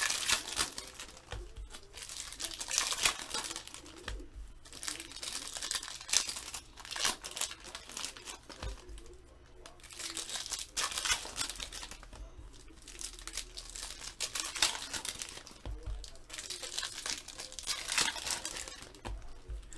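Foil trading-card packs torn open by hand, the wrappers crinkling and tearing in irregular bursts.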